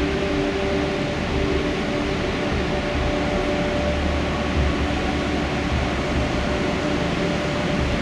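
Tall waterfall cascading down a rock face: a steady, loud rush of falling water with a low rumble underneath.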